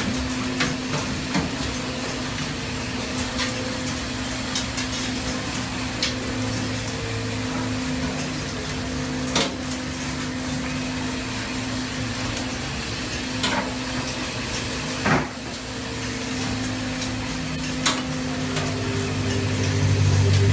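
Longline fishing boat's deck machinery running with a steady hum and rushing noise, broken by occasional sharp metallic knocks and clanks from the line-hauling gear as the line and catch come aboard. A deeper hum swells near the end.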